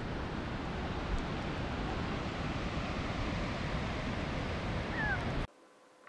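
Wind rumbling on the microphone over surf breaking on a sandy beach, an even rushing noise. It cuts off suddenly near the end, leaving only a quiet room.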